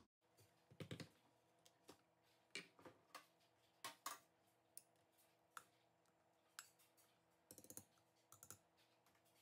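Near silence broken by a scattered handful of faint light clicks and taps from handling the glass blender jar, with a quick cluster near the end as a spoon clinks against the jar in the batter.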